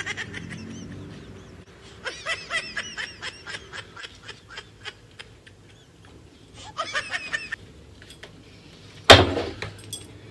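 A comical honking, laugh-like sound effect: three runs of rapid repeated honks. About nine seconds in comes a sudden loud hit that fades out.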